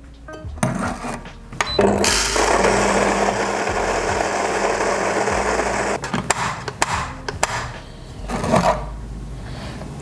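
Fellow Ode electric coffee grinder with 64 mm flat burrs grinding a single dose of beans: a dense whirring over a steady motor hum, starting about two seconds in and cutting off sharply about four seconds later. Clicks and knocks come before and after it as the catch cup is handled.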